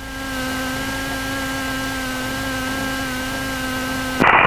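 Steady aircraft engine noise at idle: an even hum made of several steady tones over hiss.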